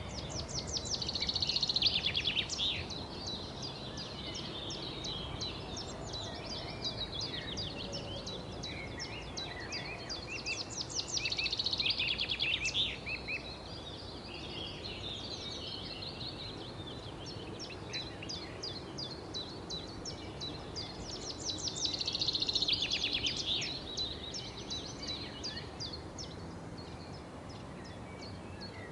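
Songbirds singing: three louder bursts of rapid trilling song, about ten seconds apart, with scattered chirps between them over a steady low background noise.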